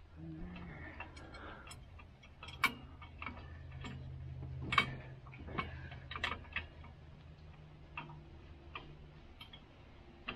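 Scattered light metal clicks and taps from a steel mounting clamp and its bolt being fitted and snugged by hand onto a tractor's rollover bar, irregular and a half-second to a second or so apart, over a faint steady low hum.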